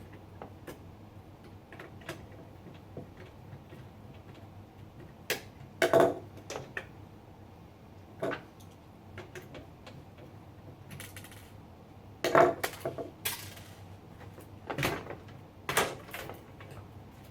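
Irregular clicks, knocks and clattering of computer hardware being handled, with a few sharper clunks, the loudest about six seconds in and again about twelve seconds in, and a couple of brief rustles.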